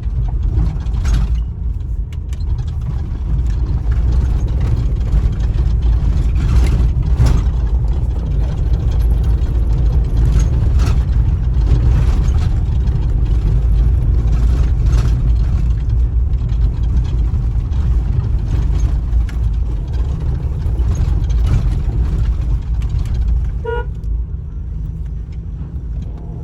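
Vehicle running along a rough road under construction: a steady low rumble of engine and road noise with scattered knocks and rattles. A brief horn toot sounds near the end.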